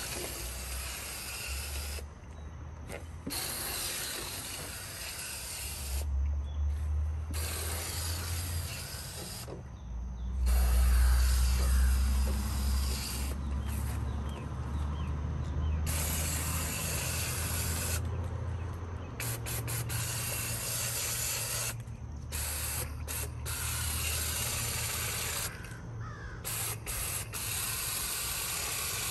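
Water spraying from a garden hose nozzle, hissing on and off in stretches of a few seconds at a time, as it rinses dirt out of an air conditioner's outdoor condenser coil.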